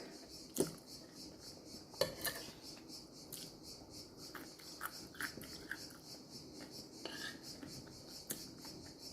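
Quiet eating sounds: a few sharp clinks of a utensil against a plate, about half a second and two seconds in, with smaller ticks and taps between.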